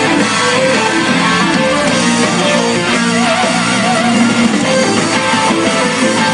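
Loud background music led by guitar, steady and dense, with no speech.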